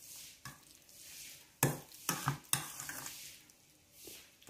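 Metal spoon stirring a wet shrimp and squid dumpling filling in a stainless steel bowl: a soft, wet mixing sound broken by several sharp clinks of the spoon against the bowl.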